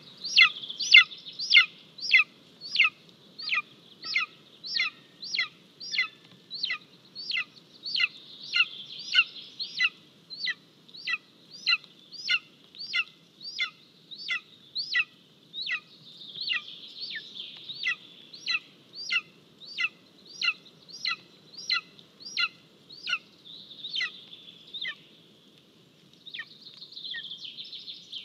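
Golden eagle chick calling over and over, about two short high-pitched calls a second, each dipping in pitch; the calls become sparser near the end.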